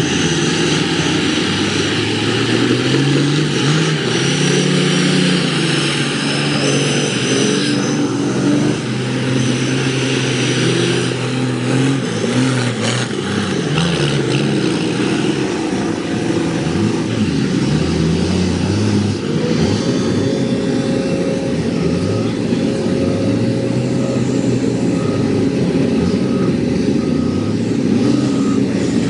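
Cummins diesel engine of a Dodge mega truck revving hard under load as it churns through mud, its pitch rising and falling again and again.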